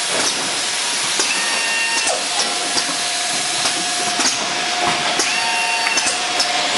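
Automatic four-head motor oil filling machine running: a steady hiss with a thin steady whine through most of it, and frequent sharp machine clicks and clacks as jugs move along the conveyor.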